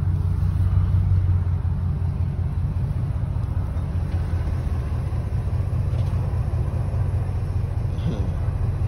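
Ford truck's engine running at low speed with a smooth, steady low rumble, heard from inside the cab.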